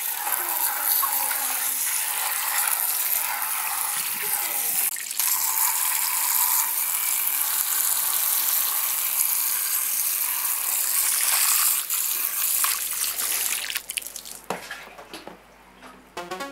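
A jet of water spraying and hissing over a computer motherboard in a metal basin as it is washed. It tails off about three-quarters of the way through, and electronic music starts at the very end.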